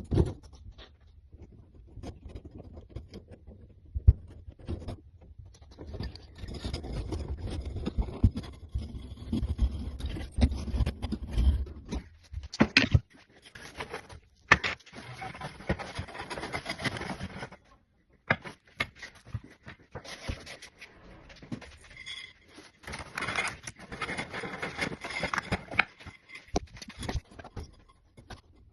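Irregular hand-work noises from working on a furnace: scraping and rubbing, with scattered sharp clicks and knocks and short pauses between bouts.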